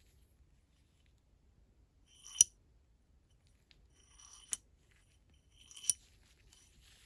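The restored vintage Snap-on T-handle being worked: three short metal-on-metal slides, each ending in a sharp click with a brief bright ring.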